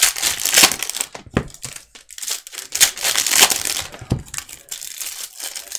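Plastic wrapper of a Panini Prizm basketball cello pack crinkling and tearing as it is ripped open by hand, with cards sliding out. Two dull knocks, about a second and a half in and about four seconds in.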